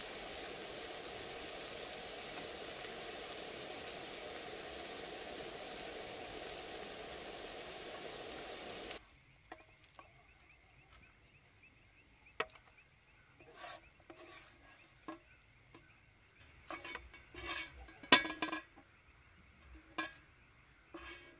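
Scrambled eggs and tomato sizzling steadily in a non-stick frying pan, cutting off suddenly about nine seconds in. After that a plastic spatula scrapes and knocks against the pan as the eggs are lifted and scooped out, with one sharp knock near the end.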